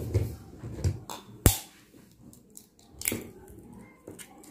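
Eggs being cracked into a glass bowl: one sharp tap of eggshell on the bowl's rim about a second and a half in, with softer knocks and shell handling around it.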